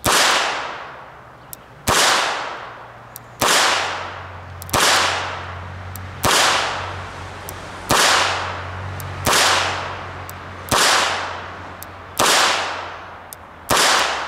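Smith & Wesson 617 .22 LR revolver fired double action: ten evenly paced shots, about one every second and a half. Each shot ends in a tail that dies away over about a second.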